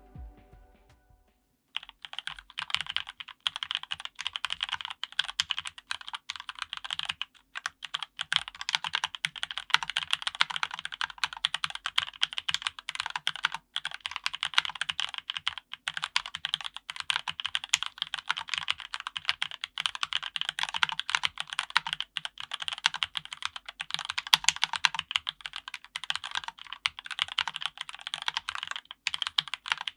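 Continuous fast typing on a Kemove K68 low-profile mechanical keyboard with Gateron Red linear switches and low-profile keycaps: a dense, steady stream of keystroke clacks starting about two seconds in.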